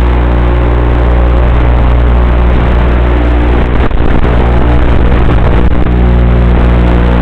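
Model aircraft motor and propeller running in flight, a steady low hum under loud rushing air, heard through the plane's small onboard camera. The hum thins for a couple of seconds before the middle, with a brief jolt just before the halfway point, then comes back steady.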